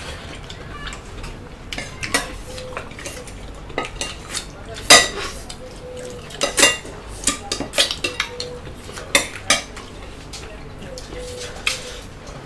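Metal spoons and forks clinking and scraping against ceramic plates and bowls during a meal, in scattered sharp clinks, the loudest about five seconds in.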